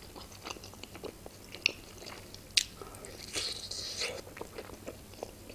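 Close-miked chewing of a Georgian khinkali dumpling: soft, wet mouth clicks and smacks, with two sharper clicks about a second apart near the middle and a short hiss just past halfway.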